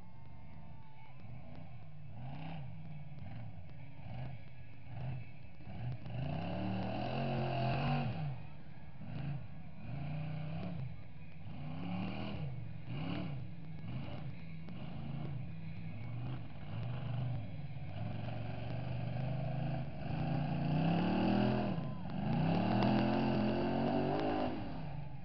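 A mega truck's engine revving up and down over and over as it drives around a dirt arena. It grows louder near the middle and again toward the end.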